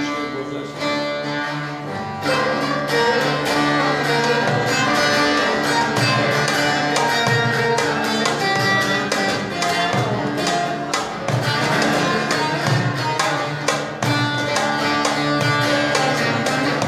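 Turkish folk music on a bağlama (long-necked saz), plucked with fast, continuous strokes; it gets louder about two seconds in.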